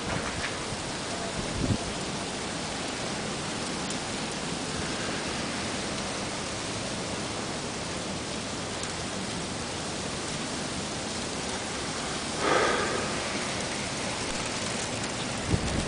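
Freezing rain falling, a steady even hiss, with a brief louder sound about three-quarters of the way through.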